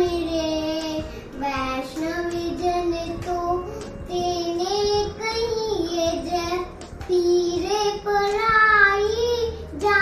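A young girl singing solo, in phrases of long held notes with short breaks between them.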